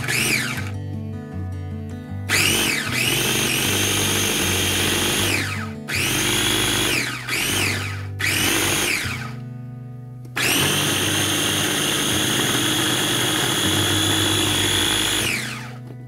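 KitchenAid mini food chopper's motor whirring in pulses: a short burst at the start, a run of about three seconds, three quick pulses, then a longer run of about five seconds. Each run winds up in pitch as it starts and down as it stops, as it purees cooked potatoes with sour cream and liquid into a creamy mash.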